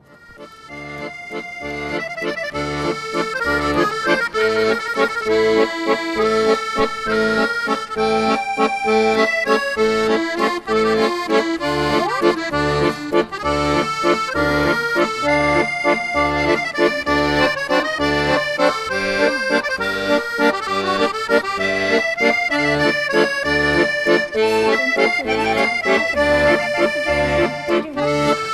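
Background music with sustained melody notes over a steady, regular bass beat, fading in over the first few seconds.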